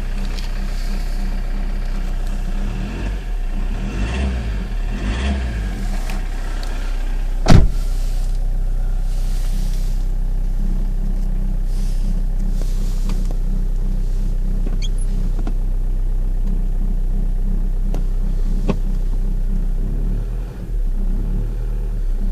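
Toyota 1CD-FTV 2.0-litre four-cylinder common-rail turbodiesel running steadily from cold, with a low rumble that the owner notices only when the engine is cold and that fades once it is at operating temperature. A single sharp knock sounds about seven seconds in.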